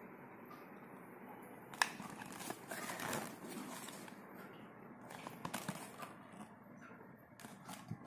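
A cardboard cream carton being handled and turned over in the hands. A sharp tap comes about two seconds in, then scattered rustling and scraping of the box.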